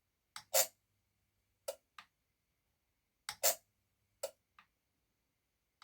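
Relays in a V-Guard refrigerator voltage stabilizer clicking again and again in a repeating cycle about every two and a half seconds. Each cycle has a loud double clack with a short mains hum after it, then two fainter clicks: the fault the stabilizer shows when switched on.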